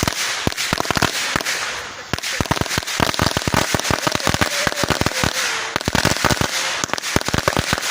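Firecrackers going off in a long, rapid, irregular run of sharp pops over a hiss. The pops are scattered at first and crowd together from about two seconds in.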